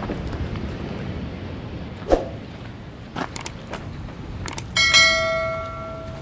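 Sound effects of a subscribe-button animation: a few sharp mouse clicks, then a bright bell chime about five seconds in that rings out and fades. Footsteps on a dirt path run underneath.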